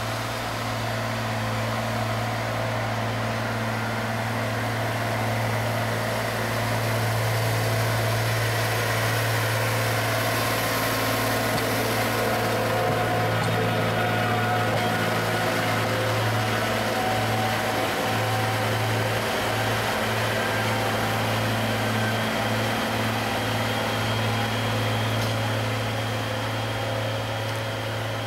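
Diesel engine of a road-rail excavator running steadily as it travels slowly along the railway track, a little louder in the middle.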